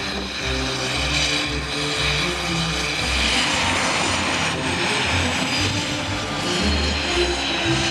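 Mi-17 helicopter's twin turboshaft engines running with a steady high whine, under background music with a moving bass line.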